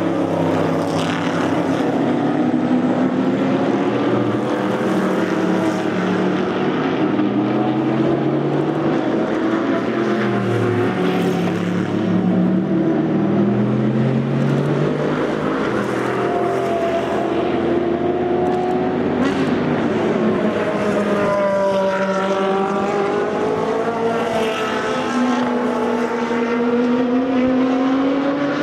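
Several race cars running on open exhausts, passing one after another without a break. Their engine notes rise and fall as the cars accelerate, shift and go by.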